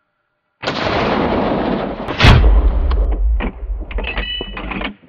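A single rifle shot about two seconds in, fired at a running wild boar, over a steady rushing noise that turns to a heavy low rumble after the shot and cuts off abruptly near the end. A few fainter knocks follow the shot.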